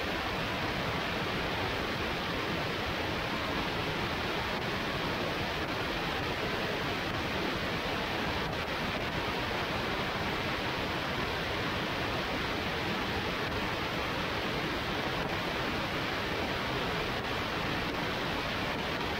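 Steady rush of airflow over a microphone mounted on the outside of a light-sport aircraft in flight, an even hiss-like roar with no clear engine or propeller tone standing out.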